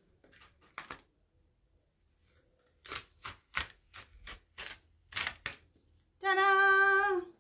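Sticky adhesive Chalk Couture transfer stencil being peeled off a banner freshly coated in chalk paste: a run of sharp ripping strokes, about eight in two and a half seconds, as the adhesive lets go.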